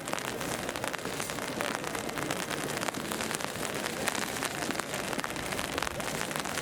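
Heavy rain falling: a steady hiss of rain with many sharp, close drop hits.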